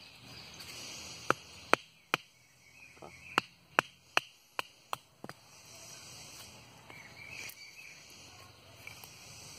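About nine sharp wooden knocks over some four seconds as a small carbon-steel bushcraft knife is knocked into a short split stick of wood. Insects chirr steadily in the background.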